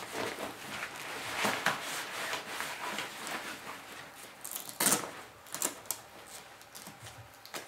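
Gear being handled and packed into a backpack: fabric rustling and shuffling, with a short sharp rasp about five seconds in.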